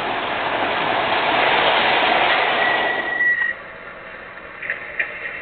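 MTH O-gauge R40 subway model train running into the station on its track, the noise building up, with a thin high squeal as it brakes about two and a half seconds in. The sound drops off suddenly as it stops, followed by a couple of short clicks.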